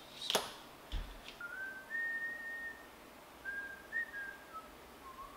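A person whistling a few soft, held notes of a tune, stepping up and down in pitch. Near the start there is a sharp click and a low thump as a cable is handled.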